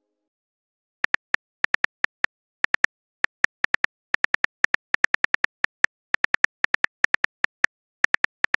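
Phone keyboard typing clicks, the tap sound effect of a texting-story app, coming in uneven quick runs of several a second from about a second in.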